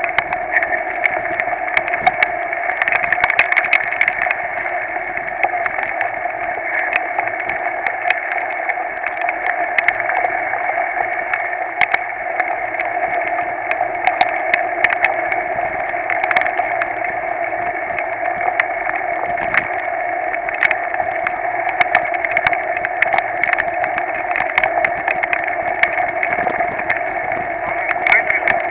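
Heavy rain and rushing wind on a mountain bike's handlebar-mounted camera riding through a downpour: a steady, loud hiss broken by many scattered sharp taps.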